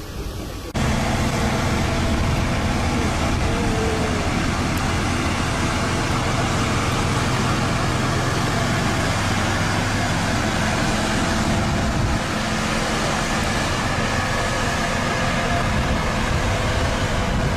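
A motor vehicle's engine running steadily, with a constant low hum and noise; it cuts in abruptly about a second in.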